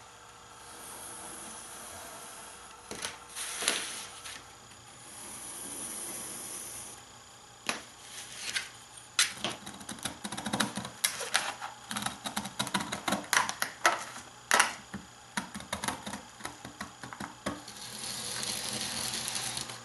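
Long-bladed shears cutting through a sheet of thin wood veneer: a dense run of sharp clicks and crackles, after soft rustling and sliding as the veneer sheet is handled. Near the end a longer scraping hiss as a knife is drawn along a metal straightedge.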